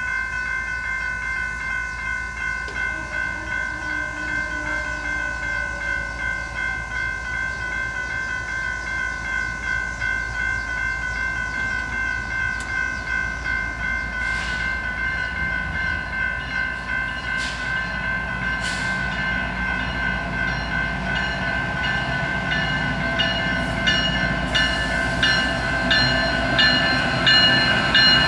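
Railroad crossing bell ringing steadily and evenly. A freight train's diesel locomotives approach under it, their rumble growing louder over the last ten seconds or so.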